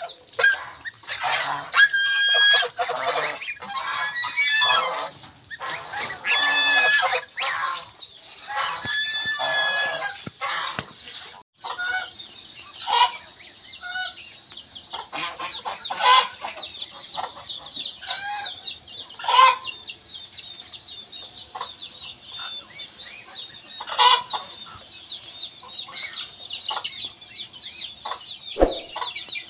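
Domestic poultry calling: repeated high, pitched calls from geese and goslings, then after a break a dense, steady chorus of high chick peeping with a few loud single clucks from chickens.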